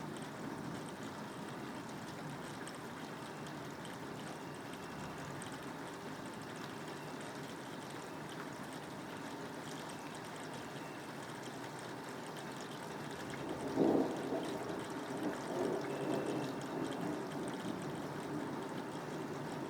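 Steady rain falling, with a sudden thunderclap about two-thirds of the way through that rolls on as an uneven rumble for a few seconds.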